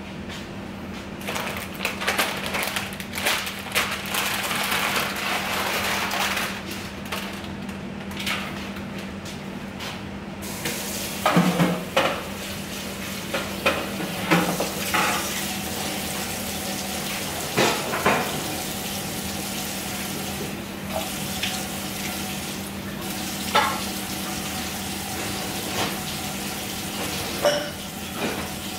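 Washing up at a kitchen sink: the tap runs for the first several seconds, then dishes, pots and cutlery clink and clatter now and then. A steady low hum runs underneath.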